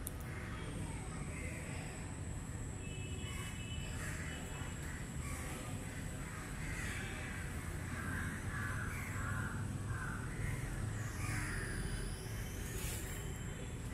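Crows cawing again and again, short calls scattered throughout, over a steady low rumble.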